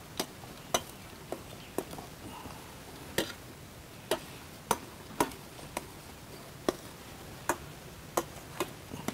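Metal spoon knocking against a stainless steel pot while mixing hot mashed potato: about fourteen sharp clicks at an uneven pace, roughly one to two a second.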